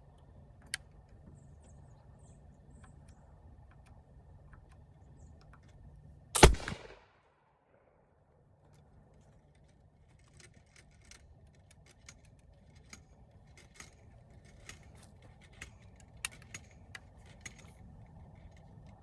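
.54 calibre flintlock Lyman Great Plains Rifle firing a single shot about six seconds in, a sharp blast with a short ringing tail. A single click comes before it, and scattered light clicks and taps follow in the second half.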